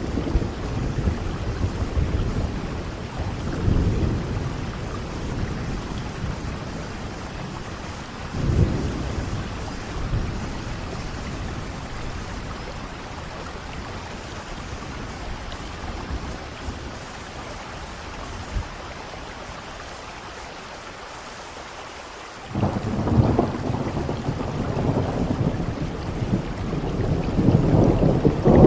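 Steady rain falling with rolling thunder rumbling underneath. The rumble eases off in the middle, then a new roll of thunder comes in suddenly about three-quarters of the way through and builds toward the end.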